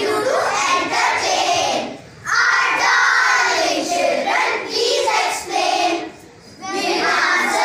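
A group of children's voices reciting in unison in a chant-like chorus, in phrases broken by short pauses about two seconds in and again near the end.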